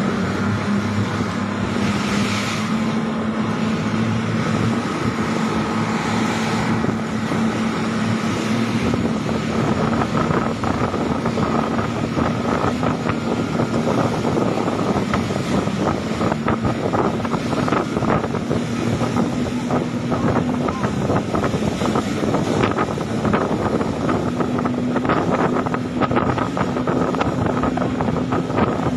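A boat engine running steadily under way, with water rushing and splashing along the hull and wind buffeting the microphone.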